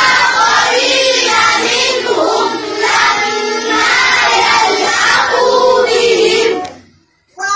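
A crowd of voices chanting loudly together, many pitches overlapping, stopping abruptly near the end.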